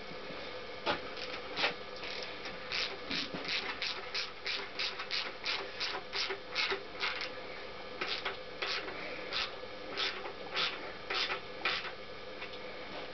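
Hand ratchet clicking as a bolt is driven into the radiator mounting on a Honda CX500 engine: a long run of short, even clicks, about two or three a second, with a brief pause in the middle.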